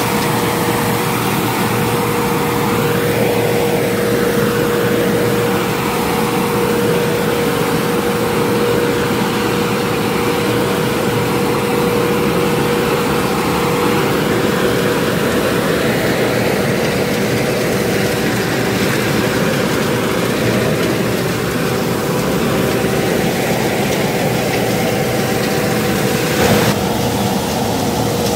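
Johnston truck-mounted road sweeper at work: a steady engine and suction-fan drone with a constant whine over it, while its rotating gutter brushes sweep up loose road chippings.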